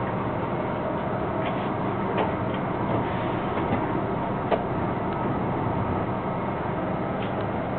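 Inside a Metro-North M3 electric railcar: a steady rumble and hum of the train, with a few scattered sharp clicks, the loudest about halfway through.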